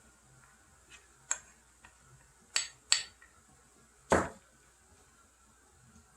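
Kitchenware clinking: a few sharp light clinks, then a heavier knock about four seconds in, like a dish or pot being set down.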